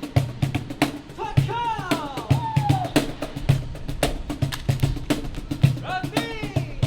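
Body percussion: a steady beat of low body thumps about twice a second, with quick sharp claps and slaps layered over it. A voice slides down in pitch twice, once about a second in and again near the end.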